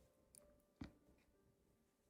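Near silence: faint held background-music tones with two soft clicks, the louder one a little under a second in.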